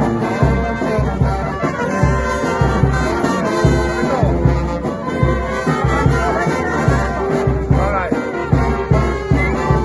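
Brass band playing live: horns over a steady low beat of about two pulses a second.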